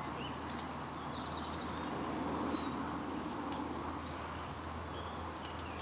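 A small bird calling over and over, short high notes that slide down in pitch, about one a second, over a steady low hum and a few faint clicks.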